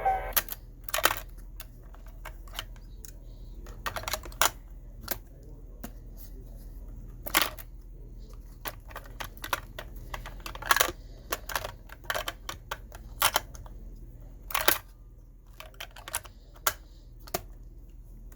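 Irregular sharp clicks and clunks of hands working on a Marantz PMD 430 cassette recorder with small tools and parts, over a steady low hum.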